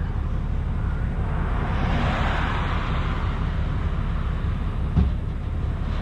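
A vehicle passing on the highway: its road noise swells and fades about two seconds in, over a steady low rumble. A single knock about five seconds in.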